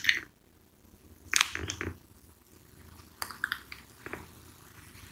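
A few soft clicks and taps in small scattered clusters, from the plastic keys of a Casio fx-991MS scientific calculator being pressed.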